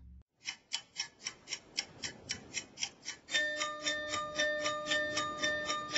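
A dubbed-in audio clip: a steady clock-like ticking, about four ticks a second. A little over three seconds in, held electronic tones join it and sustain under the ticks.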